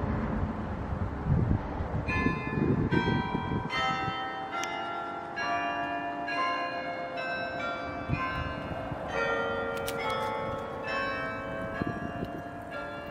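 Church bells ringing, many bells struck one after another, their tones overlapping and ringing on. A low rumbling noise sits underneath for the first few seconds.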